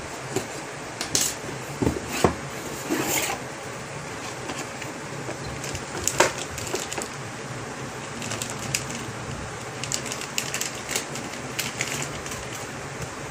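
Cardboard set-top-box packaging and plastic bags handled during unboxing: irregular rustling, crinkling and scraping with scattered sharp clicks, over a faint steady low hum.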